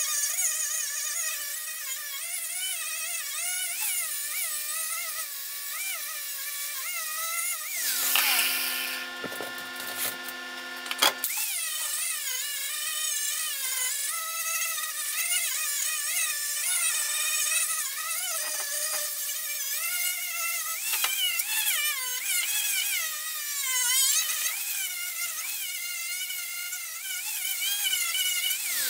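Electric angle grinder working rusted sheet metal on the rocker panel, its motor whine wavering up and down as it is pressed into the metal and eased off. About eight seconds in there is a harsher stretch of about three seconds, ending in a sharp click.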